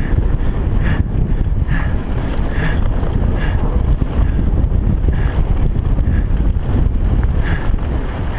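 Wind buffeting a helmet-mounted action camera's microphone over the rumble and rattle of a mountain bike riding a trail, with short higher-pitched sounds about once a second.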